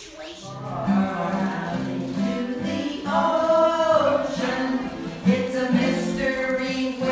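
A group of voices singing a song together, holding each note for a moment.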